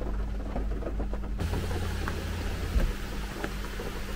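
Heavy rain falling on the car roof, heard from inside the cabin: a dense, steady hiss that comes up about a second and a half in, with a few single drops ticking out of it.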